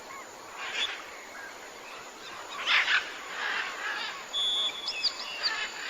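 Wild birds calling in short chirps and whistled notes, with a brief steady whistle and quick up-and-down notes in the second half.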